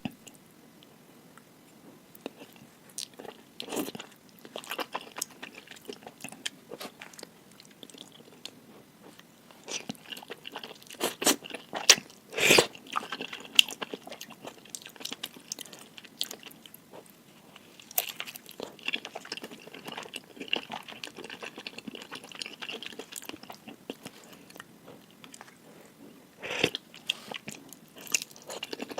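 Close-miked mouth sounds of someone eating spicy stir-fried instant noodles: chewing with many scattered wet clicks, and louder bites or slurps around the middle and again near the end.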